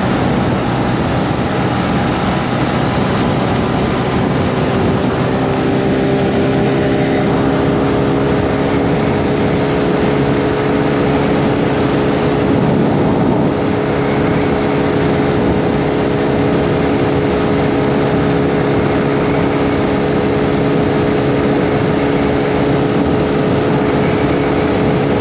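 Honda Navi scooter's small air-cooled single-cylinder engine running at full throttle near its top speed, about 50 mph, under heavy wind rush. The engine note climbs slightly in pitch a few seconds in, then holds steady.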